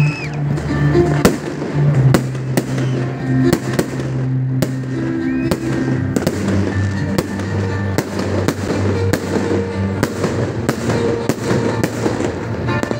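Fireworks display: aerial shells bursting in a steady run of sharp bangs, about two a second, over music with long held low notes.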